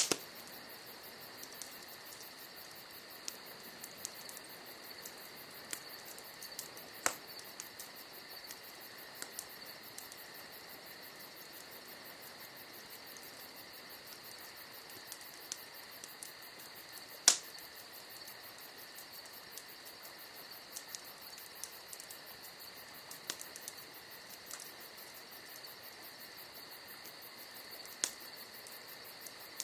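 Campfire crackling: a scatter of small ticks and a few sharp pops from burning logs, the loudest about seventeen seconds in. A steady chorus of crickets chirps underneath.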